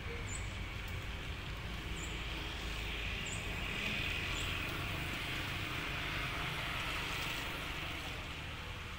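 Low, steady rumble of a diesel locomotive engine running some way off in the rail yard, with a few faint, short high chirps now and then.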